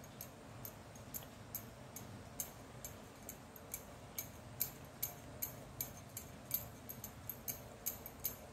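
Woolen yarn being wound round and round two fingers, each turn giving a faint, high tick, about two a second.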